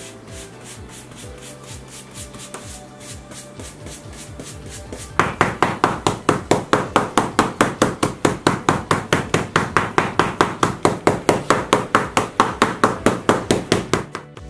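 A stiff mounting brush striking pasted backing paper on a work table, about four or five strikes a second, starting about five seconds in: the beating that bonds the backing to a hanging scroll. Before that there is softer brushing over the paper under quiet background music.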